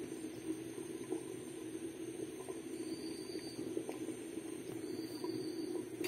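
Khichuri (rice and lentils) boiling in a pot, a steady bubbling with faint scattered pops.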